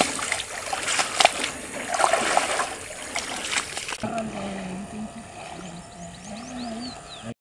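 Water splashing with irregular sharp knocks. About four seconds in, this gives way to quieter outdoor sound with a low wavering hum and several short, high chirps.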